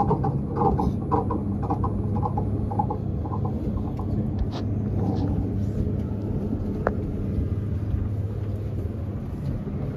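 Steady low rumble and hum of a large indoor exhibition hall: the room tone of ventilation and distant visitors.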